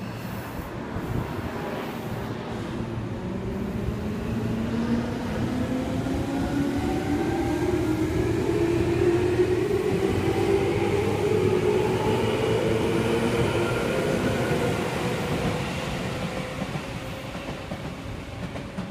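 Tobu 20000 series electric commuter train accelerating away from a station. Its chopper-controlled traction motors give a whine that rises steadily in pitch over rail and wheel running noise, growing louder and then fading as the train draws off.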